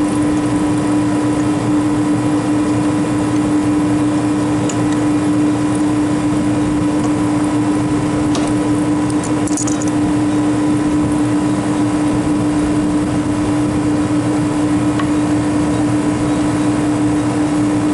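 Walk-in freezer condensing unit running: the compressor and condenser fan make a loud, steady hum with one strong droning tone. A few light clicks and clinks come about halfway through.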